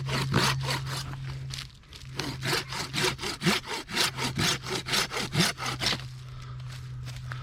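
Hand saw cutting into a rotten old pine to get at the resinous fatwood inside, in fast, even back-and-forth strokes. There is a short break about two seconds in, and the sawing stops about six seconds in.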